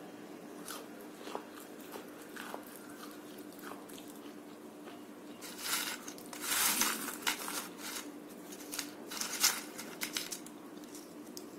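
Crunching and chewing of crisp papdi gathiya (fried gram-flour strips), with small crackles throughout. About six seconds in there is a louder, denser rustle and crackle as a hand rummages through the crisp strips on the plate, and a few sharp snaps follow as a piece is picked up.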